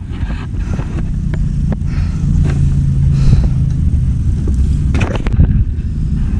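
An engine running steadily with a low rumble, with a few sharp knocks and clanks on top.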